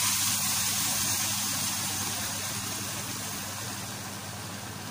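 Water pouring in a steady stream into a pan of browned chicken and spices, a steady hiss that slowly fades.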